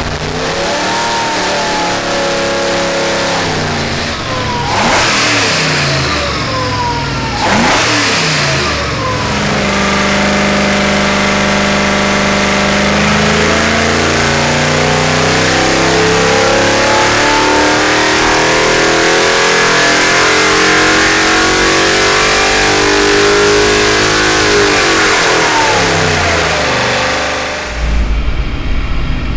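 Holden 308 cubic-inch V8 with a carburettor, running on an engine dynamometer. It revs up and down a few times, then makes a wide-open-throttle power pull, its note climbing steadily for about fifteen seconds before it drops back off near the end.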